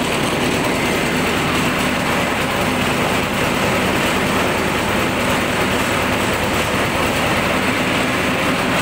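Corn sheller running: a small petrol engine running steadily at speed, turning the sheller's drum through a V-belt, with a dense, even mechanical rattle over the engine note.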